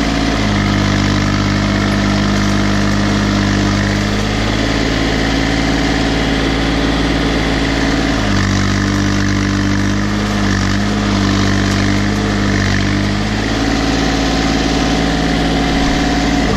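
Case 235 compact tractor's diesel engine running steadily while the tractor moves. The engine note dips slightly about halfway through, wavers, then comes back up a few seconds later.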